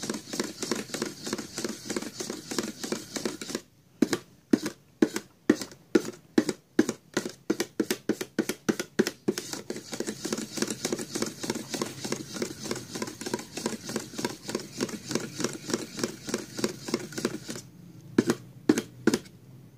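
Thick cream gloss enamel paint being stirred in a metal can with a flat stirrer: wet scraping and slapping strokes in a steady rhythm, about three a second, with a short break near the end. The paint is being mixed before a sample is taken.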